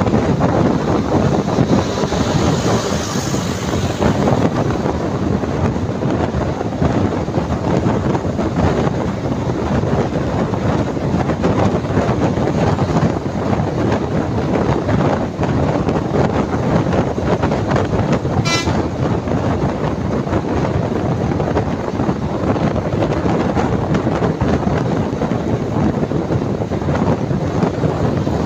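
Steady rush of wind and road noise at the window of a bus moving at speed. A single sharp click comes about two-thirds of the way through.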